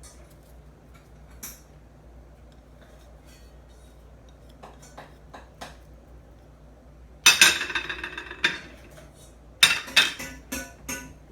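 Kitchen dishes and utensils clattering and clinking: faint taps at first, a loud clatter about seven seconds in, then a run of sharp clinks near the end.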